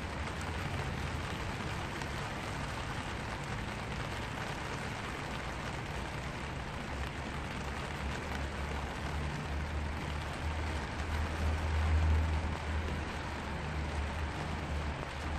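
Rain falling steadily on a black vinyl umbrella, heard from beneath it. A low rumble runs underneath and swells briefly about three-quarters of the way through.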